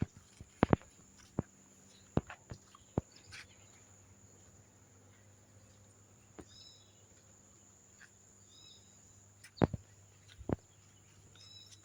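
Scattered sharp clicks and taps over a faint steady hum, with three short high chirps spaced a couple of seconds apart.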